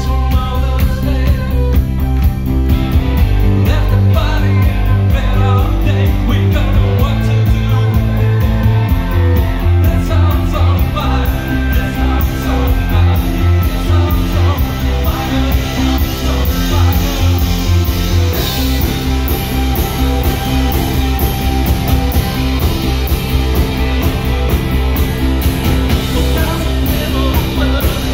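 Live indie rock band playing with electric guitar, drums and keyboard, a male lead voice singing over a steady beat, as heard from the crowd in a club.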